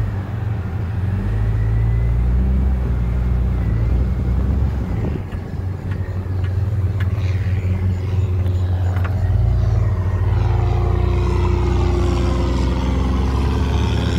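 Jeep Cherokee XJ's 4.0 straight-six engine running as the Jeep drives off. Over the last few seconds the engine note rises steadily in pitch as it accelerates.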